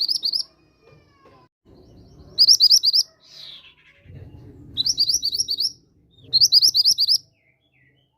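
Mantenan gunung bird song used as a lure call: four short bursts of fast, high chirping notes, each under a second long, coming every couple of seconds.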